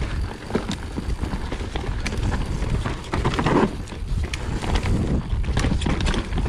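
Vitus Sommet 29 enduro mountain bike ridden fast down a rooty dirt trail: tyres rumbling over loam and roots with a steady run of irregular knocks and rattles from the bike, heard close up from a camera mounted on the rider.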